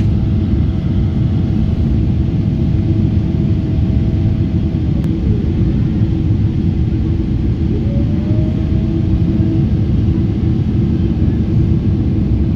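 Steady cabin roar of a Boeing 777-300 in its climb after takeoff, jet engines and airflow heard from a window seat over the wing. A faint whine drops away about five seconds in, and another rises briefly near eight seconds.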